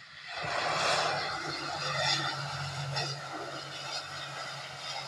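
An ATR 72-600's Pratt & Whitney PW127 turboprop engines and propellers, heard as the airliner rolls along the runway just after landing. The sound gets much louder about half a second in, then holds as a broad rushing noise over a steady low hum.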